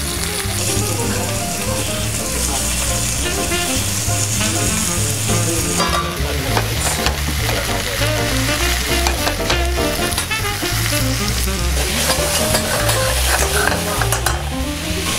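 Spinach sizzling in olive oil in a stainless steel pan, tossed with tongs near the end. Background music with a melody plays under it.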